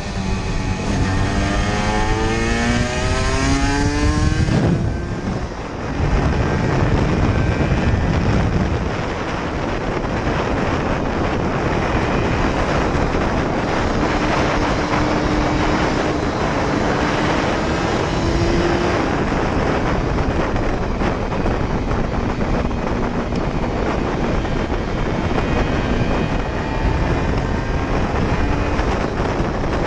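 Aprilia RS125's single-cylinder two-stroke engine revving hard, its pitch rising for about four seconds, then dropping off briefly. After that comes a steady, loud rush of noise at speed, with the engine's tone faint beneath it and climbing slightly around the middle.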